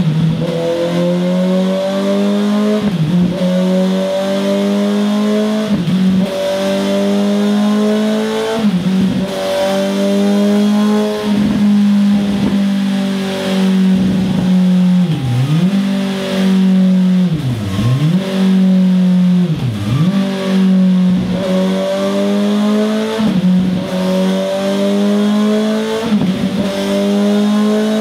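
Suzuki GSX-S 750 inline-four engine running under load through a Scorpion Serket Taper slip-on exhaust. The revs climb steadily and dip sharply and briefly every two to three seconds.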